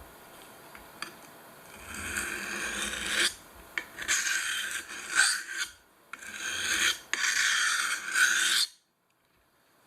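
Victorinox penknife blade scraped in three long rasping strokes, each lasting one and a half to two and a half seconds. The sound cuts off abruptly after the third stroke.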